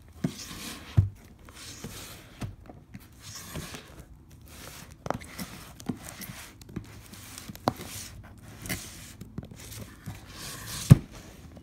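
Plastic shrink wrap on a cardboard box crinkling and rustling as the sealed box is handled and turned over, with scattered light knocks and one sharper knock near the end.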